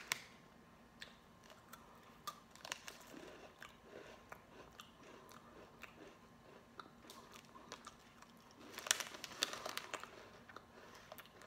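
A person chewing a crunchy orange shortbread cookie, with faint, scattered crunches, and a louder run of crackling about nine seconds in.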